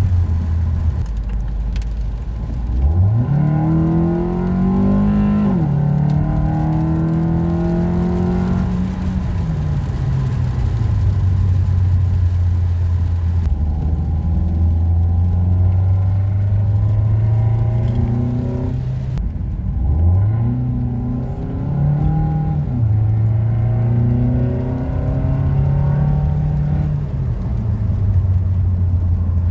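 Ford Focus engine breathing through an aftermarket cold air intake, accelerating twice. Each time the pitch climbs quickly and then drops back in steps, with steady running between the two pulls.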